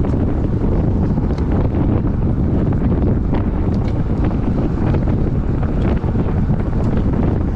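Wind rushing over the microphone of a road bike ridden at about 38–39 km/h: a steady, deep buffeting rumble.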